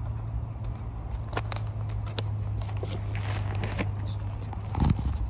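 Handling noises: scattered clicks and rustling from a plastic bento container and a down jacket, with a louder bump near the end, over a steady low hum.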